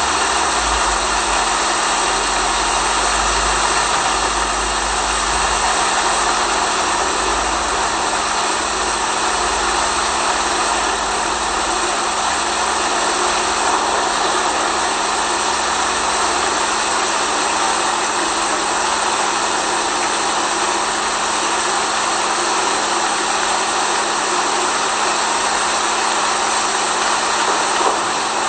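Steady rain noise, a dense even hiss with a steady hum underneath.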